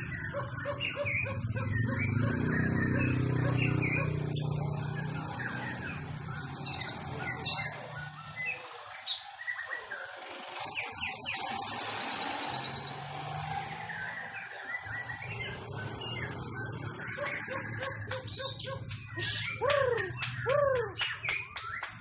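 White-rumped shamas singing against each other in a song duel: a varied stream of whistles and chirps, with low downward-slurred whistles near the start and again near the end and a fast trill a little after the middle.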